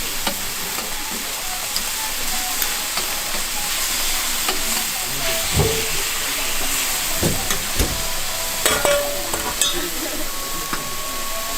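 Thick beef skirt steak sizzling steadily as it fries, with a few sharp knocks about halfway through.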